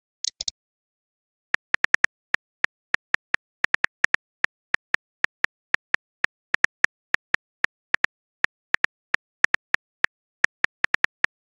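Simulated phone-keyboard key clicks from a texting-story app as a message is typed out, about four to five short clicks a second with brief pauses between words. A short high blip sounds just before the typing starts.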